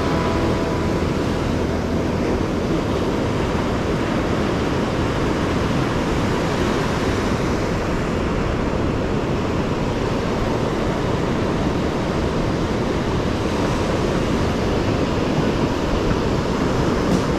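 Ocean surf washing onto the beach: a steady rushing noise, with some wind on the microphone.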